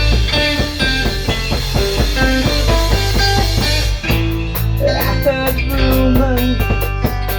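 Instrumental rock music with guitar and drums. About four seconds in, the arrangement changes and a steady cymbal beat comes in.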